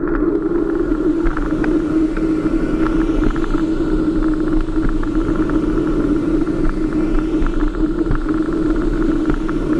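Electric bike riding along a road: a steady rumble with a constant hum and scattered light rattles.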